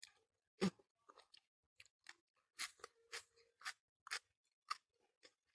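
Close-up mouth sounds of eating soft fried tofu in sauce: a string of short, wet chewing smacks and lip clicks at an uneven pace, the loudest about half a second in.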